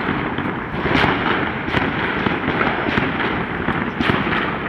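New Year's fireworks going off: a dense run of bangs and crackles, with a few louder reports among them.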